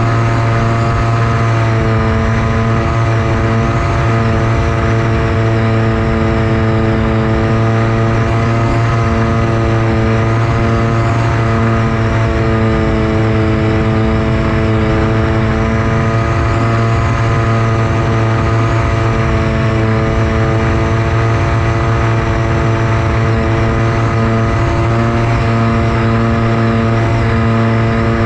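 Versa Wing flying wing's electric motor and pusher propeller running steadily in flight: a loud, continuous hum whose pitch wavers slightly with throttle, over rushing wind noise.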